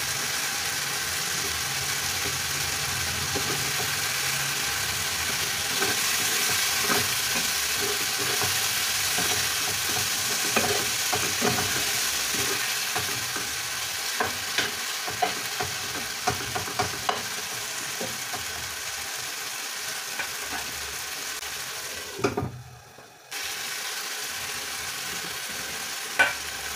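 Chicken pieces in a yogurt-based marinade sizzling steadily in a non-stick frying pan. Scattered light clicks and taps come through the middle of the stretch as the pieces are turned. The sizzle cuts out for about a second near the end, then resumes.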